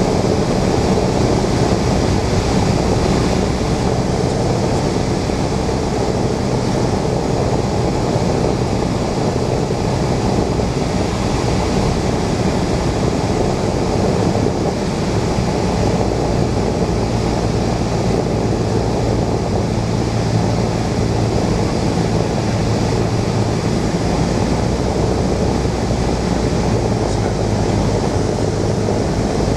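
Cessna 172's piston engine and propeller droning steadily, heard inside the cockpit, over a constant rush of air.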